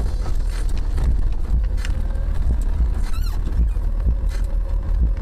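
Car driving on a snowy road, heard from inside the cabin: a steady low rumble of road and engine noise, with scattered ticks and a short wavering squeak about three seconds in.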